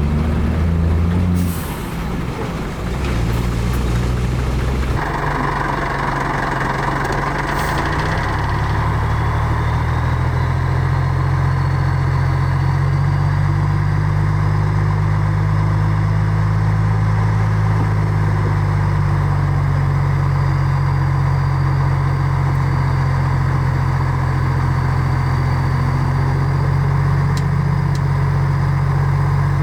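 Heavy diesel engines of earthmoving machinery, a bulldozer and dump trucks, running steadily under work. The sound changes abruptly about five seconds in.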